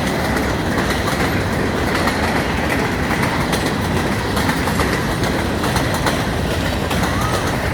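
Freight or passenger train cars rolling past, steady wheel and rail noise with faint clicks from the rail joints.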